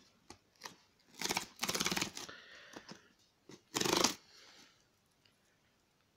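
Cardboard mailer box being torn open along its perforated tear strip: a crackling rip lasting about a second, then a second, shorter rip about four seconds in.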